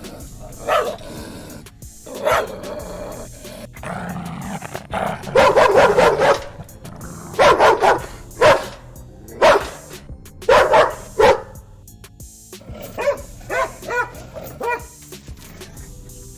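Dogs fighting, barking in repeated loud bursts, with a quick run of short barks near the end.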